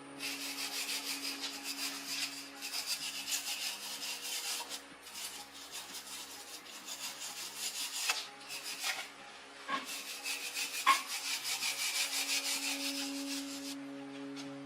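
Fast back-and-forth rasping strokes, like hand filing or rubbing on a hard part, in two long spells broken by a short pause about ten seconds in. Steady tones of background music run underneath.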